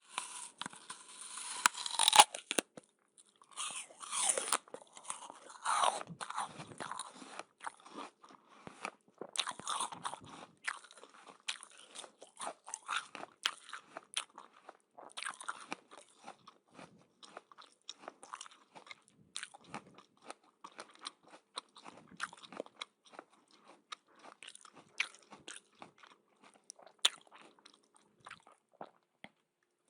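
A person biting into and chewing crunchy food, close to the microphone: a few loud, crisp bites in the first ten seconds, then steady crackly chewing.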